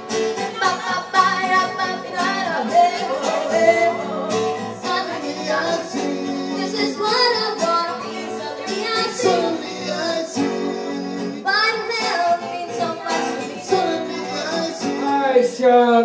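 A live band song: a woman sings lead into a microphone over strummed acoustic guitar.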